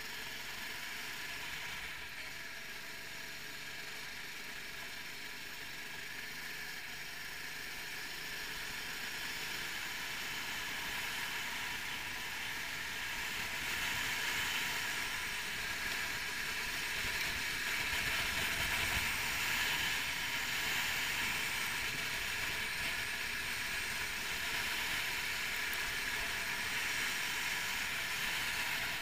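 A 390 cc four-stroke kart engine running at racing speed, heard from on board with a steady hiss. It gets louder from about twelve seconds in, peaks around twenty seconds, and eases slightly near the end.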